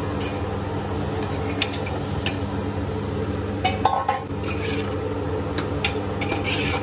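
Metal spoon stirring vegetables in an aluminium pressure cooker, with repeated clinks and scrapes of metal on metal, a cluster of them with a short ring about halfway through. A steady low hum runs underneath.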